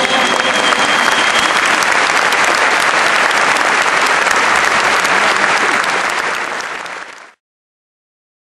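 Audience applauding, with the last held note of a song dying away about a second in. The clapping fades near the end and then cuts off to silence.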